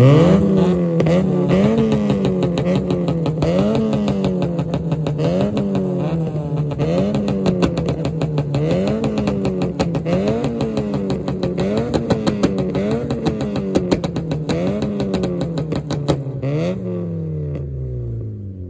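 Tuned car engine held at high revs, its pitch surging up and sagging back about every second and a half, with a constant crackle from the exhaust. Near the end the revs drop away.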